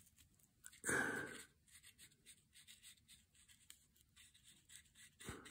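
Paintbrush working on cardboard: a run of faint, quick scratchy strokes, after a brief louder rush of noise about a second in.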